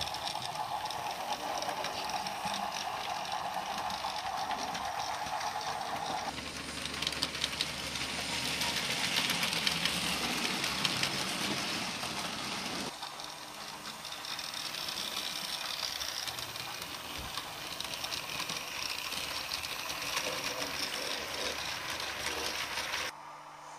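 HO-scale model trains running: small electric motors whirring and metal wheels rattling on the track, with a steady whine during the first six seconds. The sound changes abruptly twice, at the cuts between shots.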